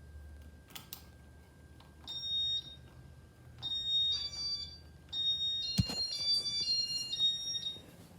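A string of high electronic beeps in two pitches, coming in three groups, with a sharp knock about six seconds in.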